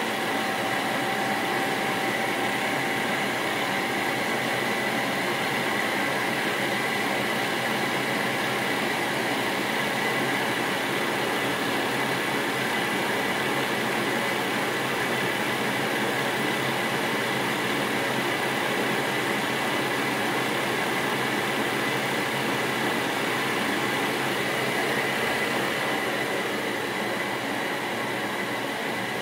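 8mm film projector running: a steady mechanical whir with a faint, constant high whine.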